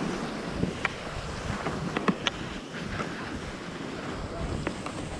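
Skis sliding and scraping over packed, groomed snow at speed, with wind rushing over the microphone and a few short sharp clicks or scratches of the edges on the snow.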